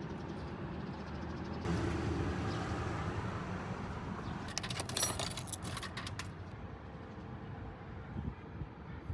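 A car passes on the street, its tyre and engine noise swelling and then slowly fading. Midway there is a short burst of metallic clicking and rattling, like keys jangling.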